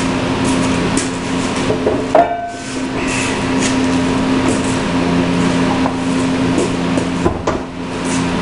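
Wooden ramp boards being set down and handled: a series of knocks and clunks of wood, the loudest about two seconds in with a short ring after it, over a steady low hum.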